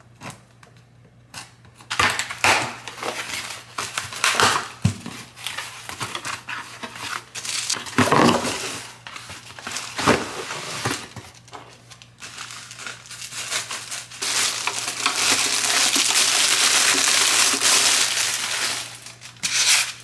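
A cardboard box being cut open with scissors and unpacked: cardboard and packaging rustling and crinkling, with scattered knocks, then a long spell of steady crinkling from about three-quarters of the way through.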